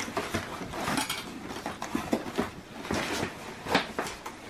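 Cardboard box being rummaged through and lifted out of a plastic laundry basket: rustling and scraping of cardboard and contents, with scattered light knocks and clatters as items shift.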